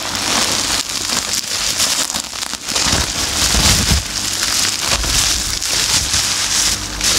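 Bubble-wrap packing stuffing crinkling and crackling continuously as hands pull it out of a leather satchel.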